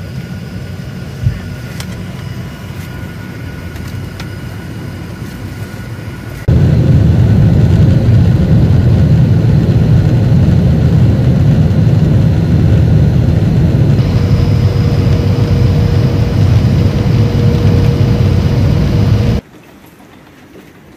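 Jet airliner cabin noise at a window seat: a steady hum with a faint whine, then suddenly a much louder, steady low rumble of engines and airflow in flight, which cuts off abruptly near the end to a quieter background.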